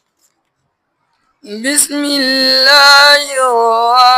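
About a second and a half of silence, then a voice begins melodic Qur'anic recitation (tajwid chanting), drawing out long held notes.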